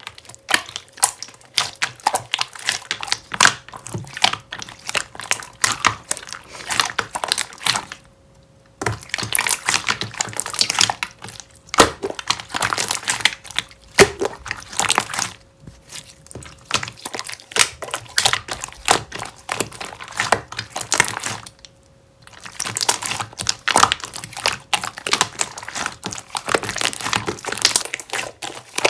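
Hands squishing and kneading a clear jelly-type slime, a dense run of small crackling, popping clicks with brief pauses about eight, fifteen and twenty-two seconds in.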